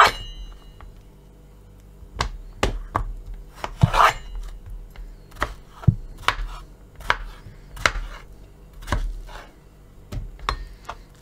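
Kitchen knife slicing peeled zucchini on a plastic cutting board: irregular sharp clicks of the blade striking the board, about one or two a second.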